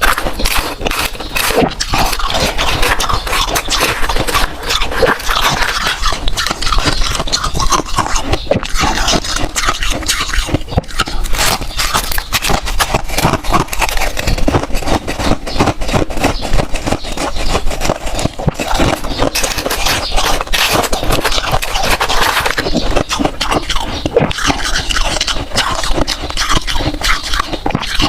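Freezer frost crunching, close-miked: a dense, unbroken run of crisp crackles.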